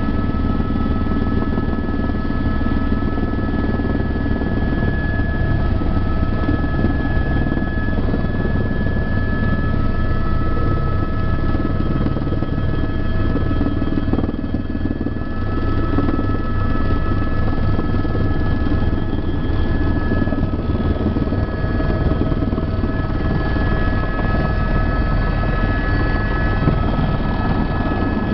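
Helicopter turbine engine and rotor heard from inside the cabin: a steady low rotor throb under a constant high whine, as the helicopter comes in to land on its helipad.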